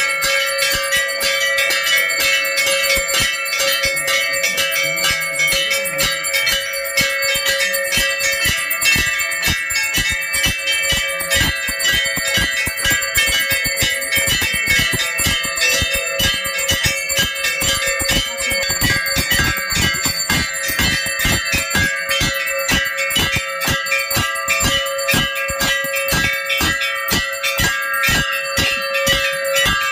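Temple bells rung rapidly and without pause for aarti: quick repeated metallic strikes, several a second, over a steady ringing tone.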